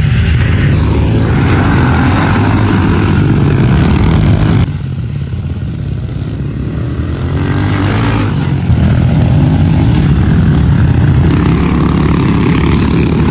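Several pit bike engines running hard together as the riders race, revving up and down. The sound drops abruptly about four and a half seconds in and comes back about four seconds later.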